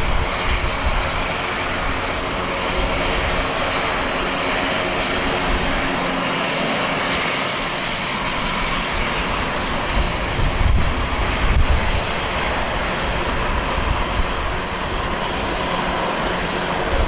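Airbus A330-300 twin-engine jet airliner's engines running: a steady, dense jet noise with a low rumble that swells briefly about two-thirds of the way in.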